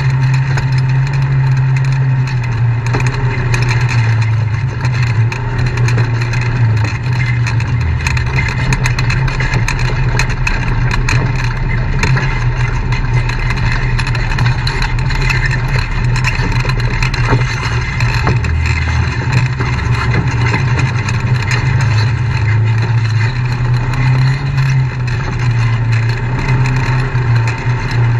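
Off-road side-by-side (UTV) engine running steadily at low trail speed, with frequent rattles and knocks from the machine jolting over the ruts and rocks.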